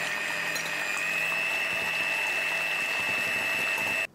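Electric hand mixer running at speed, its beaters whipping egg whites to a foam in a glass bowl: a steady motor whine that rises slightly in pitch about a second in and cuts off abruptly near the end.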